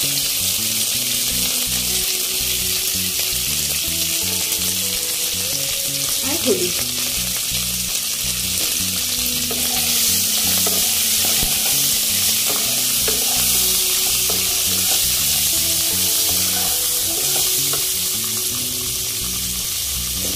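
Potato wedges and green vegetable stalks sizzling steadily in hot oil in a nonstick pan, stirred with a wooden spatula.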